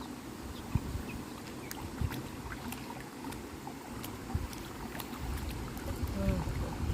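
Creek water lapping and lightly splashing, with scattered small clicks, and wind rumbling on the microphone, stronger near the end.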